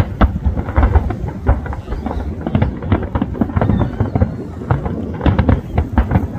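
Aerial fireworks bursting in quick, irregular succession: a dense string of bangs with low booms, several a second.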